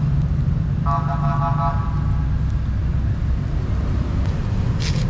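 Steady low rumble of motor vehicles, with a short steady high tone lasting about a second, starting about a second in, and two brief hissy noises near the end.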